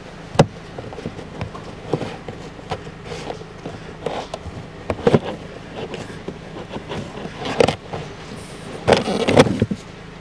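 Irregular clicks, knocks and scraping rustles as a dirty pleated cabin air filter is worked out of its plastic housing by hand. The scraping is loudest near the end as the filter comes free.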